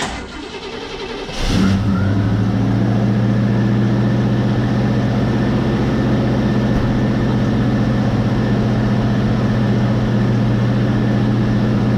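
1971 Pontiac Ventura's engine on a cold start with its freshly rebuilt carburetor: cranked for about a second and a half, it catches and settles into a steady idle.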